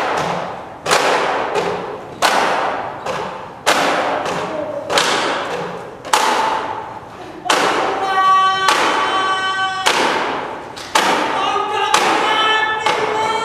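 Slow, heavy percussion beats, about one every second and a quarter, each ringing out in the reverberant hall. From about eight seconds in, a group of voices chants long held notes over the beats in two phrases.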